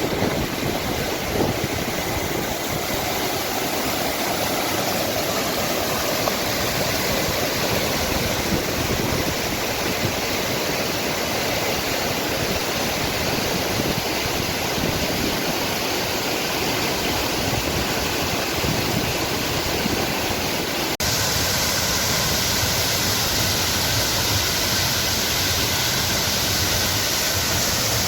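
Steady rush of water from a waterfall. About three quarters of the way through it cuts abruptly to a slightly brighter, hissier rush.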